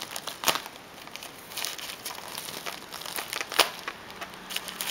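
Packaging wrapper crumpled and crinkled by hand as it is pulled open, with two sharper, louder crackles, one about half a second in and one near three and a half seconds in.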